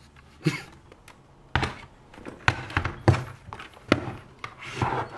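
Plastic Polaroid box-type instant cameras being handled and set down on a desk: several separate knocks and thunks with handling rustle between them.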